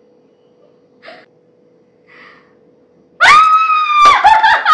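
A woman's high-pitched scream of joy bursts out about three seconds in, held for nearly a second, then breaks into shorter excited shrieks. Before it, only a faint steady hum.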